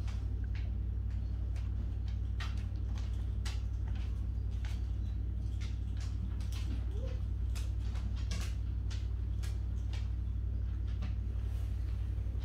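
Dogs' claws clicking and tapping irregularly on a wooden floor as they move about, over a steady low hum.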